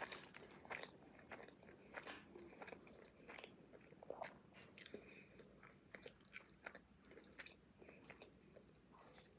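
Faint, close-up chewing and biting into a banh mi on crusty baguette: irregular small crunches and mouth clicks.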